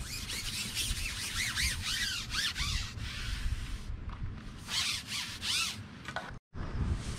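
Rubbing and scraping with short squeaky, swooping notes, cut off by a brief dropout near the end.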